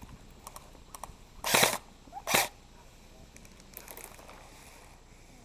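Two short, loud crunches a little under a second apart, with a few faint clicks around them.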